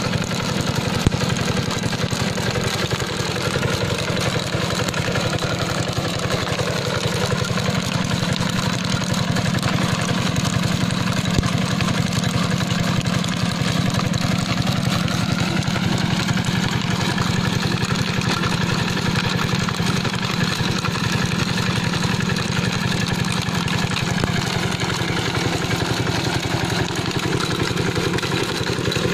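Yanmar SS70C-G single-cylinder diesel engine of a walk-behind trench digger running steadily, with a brief sharp click about a second in.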